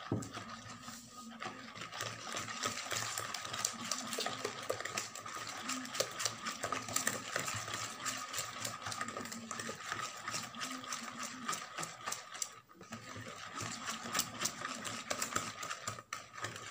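Hand whisk beating a runny egg-and-oil batter in a plastic bowl: fast, steady strokes knocking against the bowl, with two brief pauses near the end.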